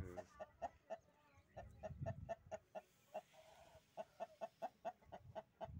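Aseel hens clucking softly in a steady run of short clucks, about four a second.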